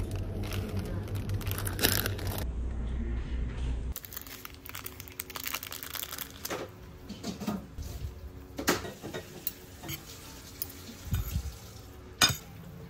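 A steady low hum of supermarket ambience for about four seconds. Then the crinkling and tearing of a foil seasoning sachet being opened over instant noodles. Near the end a sharp clink comes as metal forks toss the noodles on a ceramic plate.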